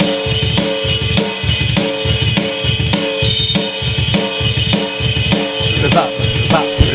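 Recorded drum-kit track playing back: kick drum and snare, with rimshots, in a steady driving beat.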